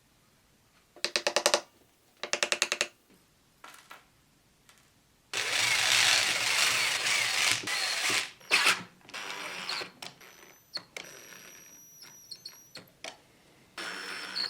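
Two short bursts of a small power tool, each a rapid run of clicks, then a louder few seconds of rushing noise followed by scattered clicks and taps.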